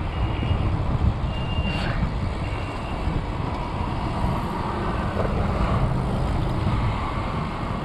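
Steady rushing wind noise on the microphone and tyre roar from a bicycle ridden fast through city traffic, with car and motorbike engines running close by.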